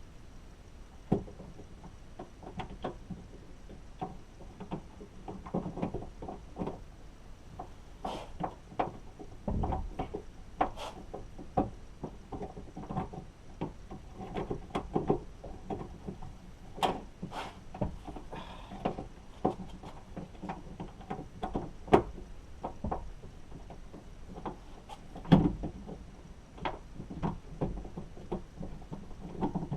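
Irregular clicks, taps and a few louder knocks of plastic and metal parts being handled and fitted as the outside door handle goes back into a 2017 Nissan Sentra front door.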